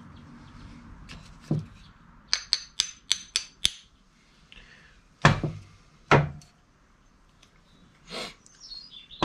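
Small hammer tapping a cross pin into the steel cage of a Mini Spares Evolution cross-pin differential: a quick run of about six light, ringing metal taps, then three heavier knocks.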